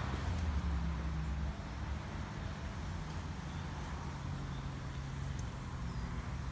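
Steady low engine hum from street traffic, under a faint outdoor hiss.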